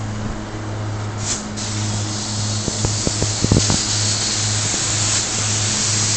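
Steady low electrical hum. About a second and a half in, a loud, even hiss starts and keeps going, with a few light clicks near the middle.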